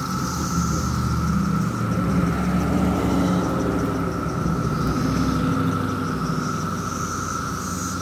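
A steady, high-pitched drone from a chorus of 17-year periodical cicadas, with a car, a Dodge Charger, driving past. Its engine and road rumble swell through the middle and ease off near the end.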